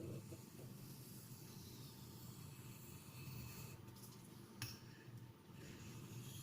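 Faint, repeated rubbing strokes of a CTS XHP steel knife edge drawn across a natural sharpening stone while a micro bevel is put on to clear the burr. There is one sharp click about four and a half seconds in.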